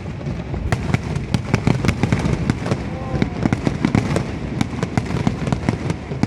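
Fireworks display: a rapid, irregular crackle of sharp cracks and pops, several a second, over a continuous low rumble of shell bursts.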